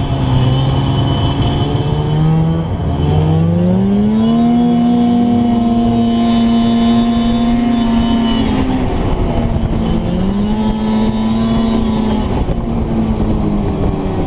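A vehicle engine accelerating and running at speed: its pitch climbs about three seconds in and holds high, dips near the middle, then climbs again and eases off near the end.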